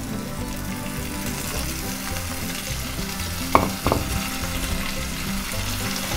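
Bitter gourd, lemon pieces and slit green chillies sizzling as they are tipped into hot oil and crushed garlic in a kadhai. Two sharp knocks come about three and a half seconds in.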